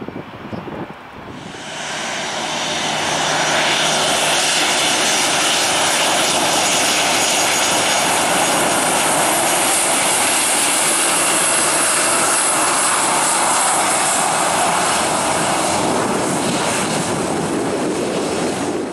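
Southwest Boeing 737-800's twin CFM56 turbofans at takeoff thrust during the takeoff roll: a loud jet roar with a high fan whine on top. It builds over the first few seconds, holds steady, and cuts off suddenly near the end.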